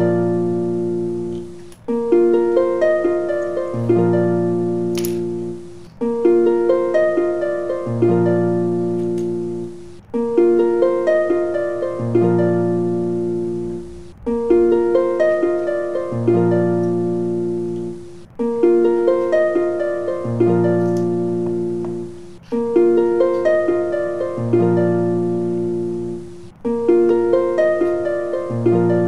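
Background music: a short plucked-string phrase that loops, breaking off briefly and restarting about every four seconds.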